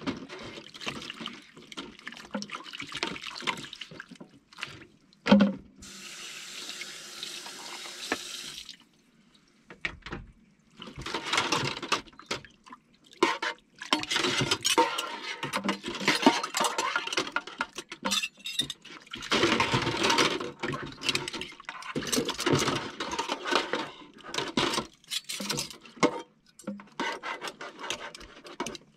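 Dishes being washed by hand at a kitchen sink: tap water running and splashing, with clinks and clatters of cutlery and dishes. The water runs steadily for a few seconds early in the stretch, there is a brief lull, and then busier, denser washing follows.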